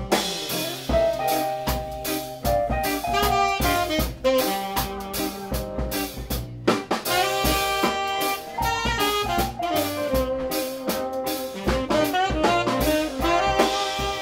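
Small jazz band playing live: saxophone carrying sustained melody lines over keyboard, electric guitar, upright bass and drum kit.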